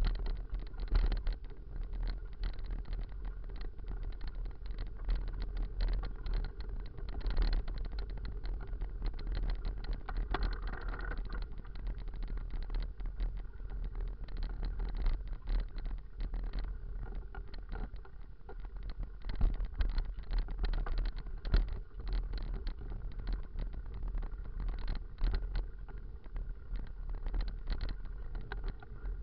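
Riding noise from a full-suspension mountain bike on a rough, potholed lane: wind rumbling on the microphone, tyre noise, and frequent rattles and knocks as the bike goes over bumps, a few of them louder jolts.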